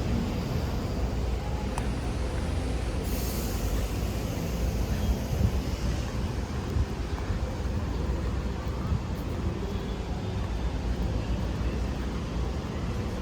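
Rainy city-street ambience: steady low traffic rumble, with a burst of high hiss that starts abruptly about three seconds in and fades over the next few seconds.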